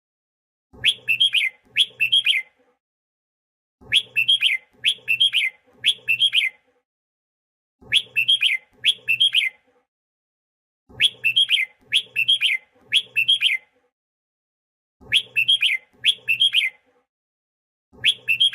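Red-whiskered bulbul song: groups of two or three short, quick whistled phrases, repeated about every three and a half seconds with silence between, a lure or training recording meant to rouse other bulbuls into song.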